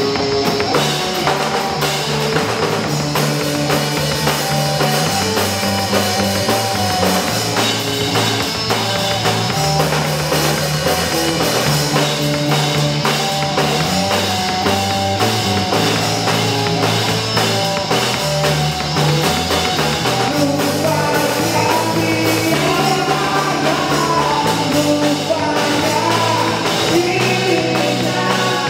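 A grunge band playing live: electric guitar, bass guitar and drum kit, with the bass line moving between held notes and the drums keeping up a steady, dense beat.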